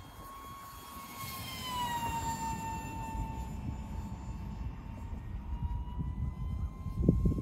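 The 40 mm electric ducted fan of a small 3D-printed RC jet, whining steadily in flight overhead. Its pitch drops as the jet passes, about one to two seconds in, then slowly climbs back. A low rumble runs underneath and grows near the end.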